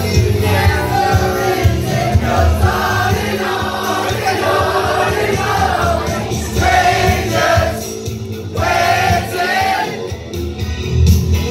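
Music with a group of voices singing.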